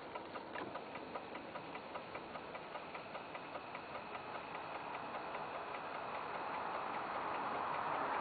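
Porsche 993 power seat's electric adjustment motor running, with a steady ticking about five times a second. A rushing noise grows steadily louder over the last few seconds and covers the ticking.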